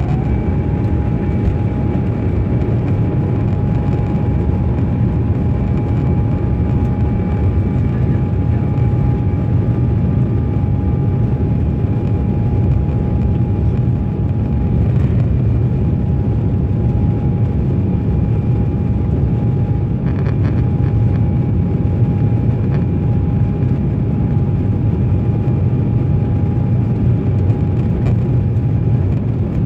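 Jet airliner's engines at take-off and climb power, heard inside the passenger cabin: a steady, loud low rumble with a steady high-pitched whine over it.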